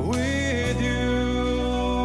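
Male singer holding a long note over a live band with acoustic and electric guitar; his voice slides up into the note at the start, then holds it steady.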